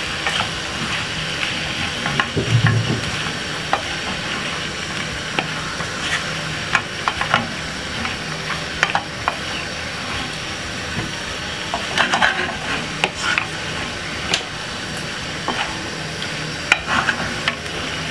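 Spinach sizzling in olive oil in a non-stick frying pan while a wooden spoon stirs it. A steady sizzle runs under irregular scrapes and taps of the spoon against the pan, with a dull knock about two and a half seconds in.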